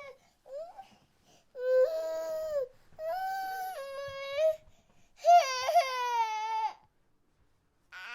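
Baby crying: a short whimper, then three drawn-out wails with brief pauses between them, and a new wail starting near the end.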